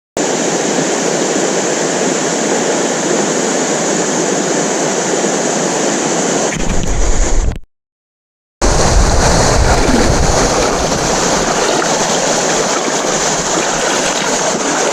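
Steady rush of river water flowing over rocks, a loud, even hiss that drops out for about a second midway.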